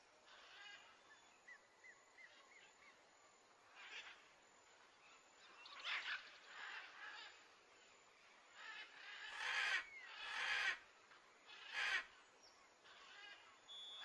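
Faint outdoor animal sounds: a few light chirps, then several short rasping calls spaced a second or two apart, the loudest two close together about two-thirds of the way through.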